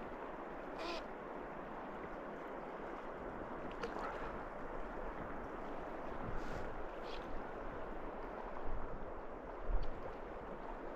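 River current flowing steadily past the bank, a continuous rush of water, with a few brief high ticks and a soft low bump near the end.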